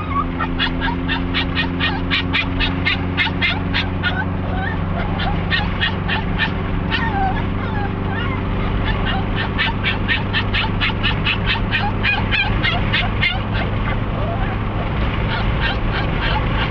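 Chihuahua yipping and squealing excitedly in rapid runs of about four to five short calls a second, with brief pauses between runs, over the steady hum of the car.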